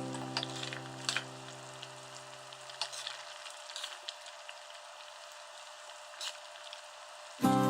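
Food frying in oil in a pan, with scattered crackles and pops. Held music notes fade out in the first few seconds, and music comes back loudly just before the end.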